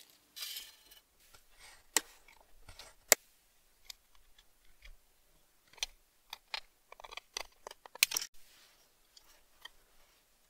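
Tin snips cutting a strip from thin copper sheet: a string of short, sharp snips and clicks, bunched closest together about seven to eight seconds in.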